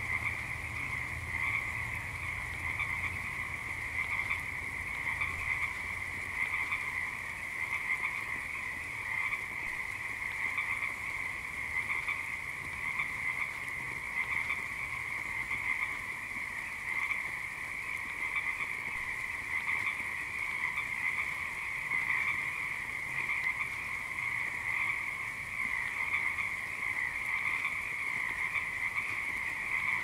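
A chorus of frogs croaking in a steady, unbroken din.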